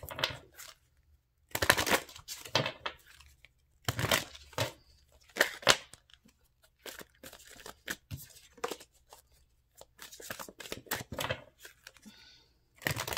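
A deck of Romance Angels oracle cards being shuffled by hand: irregular runs of cards sliding and slapping against each other in short clusters of sharp clicks and rustles, with brief pauses between them.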